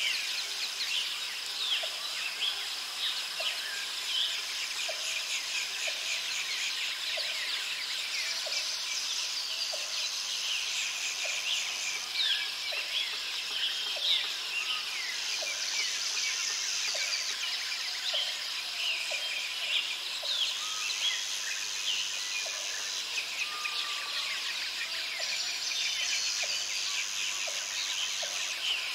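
Forest ambience: many birds chirping over a steady high insect drone, which drops in and out every few seconds. A lower, regular call repeats about once a second.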